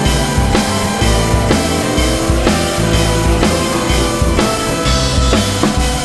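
Rock music with drums and guitar at a steady beat.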